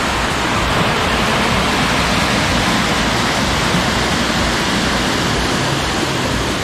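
Small woodland stream in flood, its brown floodwater rushing fast over rapids: a loud, steady rushing noise.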